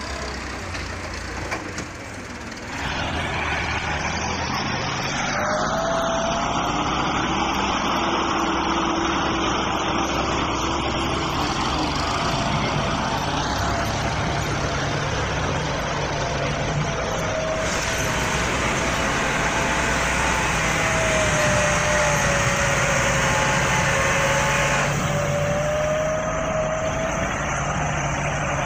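Farm tractor's diesel engine running steadily under load while pushing soil with a front blade, with a whining tone that wavers in pitch. The engine sound grows louder about three seconds in and changes abruptly a few times.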